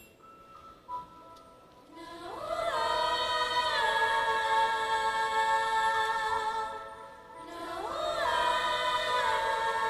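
High school concert choir singing: after a soft opening, the voices sweep upward into a loud held chord about two seconds in, ease off briefly near seven seconds, then sweep up again into another sustained chord.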